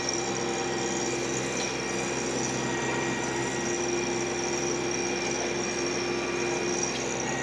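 TYM T264 compact tractor running under load, driving a rear PTO rotary tiller through muddy garden soil: a steady engine and machine drone with a constant high whine over it.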